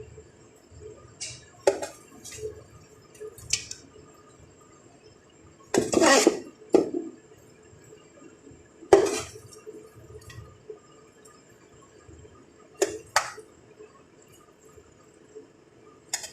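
A serving spoon clinking and scraping against a cooking pot as rice and chicken are layered into it for biryani: a scattering of sharp clinks, with a longer scrape about six seconds in.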